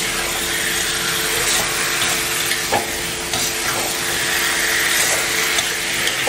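Masala-coated chicken pieces sizzling as they dry-roast in oil in a steel kadai on a low flame, stirred and scraped with a wooden spatula. There are a few light scraping knocks and a steady low hum underneath.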